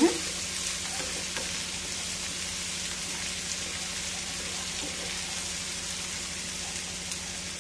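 Chopped onions, green chillies and curry leaves sizzling steadily in hot oil in a non-stick wok while being stirred with a wooden spatula, frying until golden.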